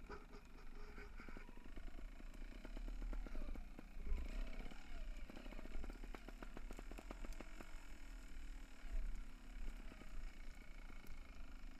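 Mountain bike descending a forest dirt trail: tyres running over dirt and the bike rattling and clicking over bumps, thickest in the middle, with low wind rumble on the microphone.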